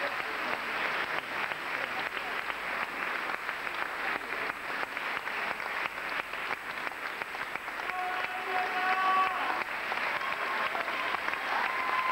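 Sustained applause from a hall of people clapping, a dense, steady crackle of many hands. A few voices call out over it about eight seconds in and again near the end.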